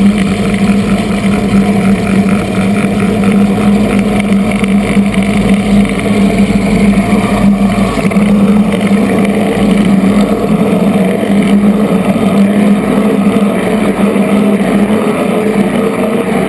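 Kamov Ka-26 helicopter running with its coaxial rotors turning, heard from the spinning rotor head: a loud, steady drone from its radial piston engines and rotor drive, with one strong low hum.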